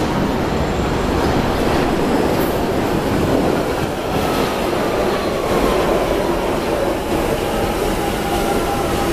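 London Underground Central line train (1992 stock) pulling into the platform: a loud, steady rumble of wheels on rail, with a whine that slowly falls in pitch as the train brakes.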